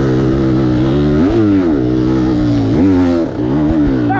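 Dirt bike engine running under throttle while riding. The note holds steady, rises briefly about a second in and again near three seconds, then dips for a moment.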